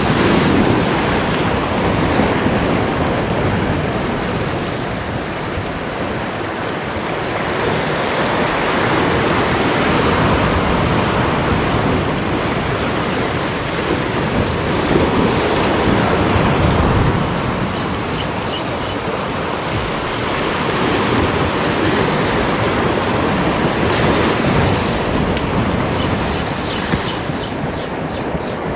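Sea waves breaking and washing over a rocky shore, the surf swelling and easing in slow surges every several seconds.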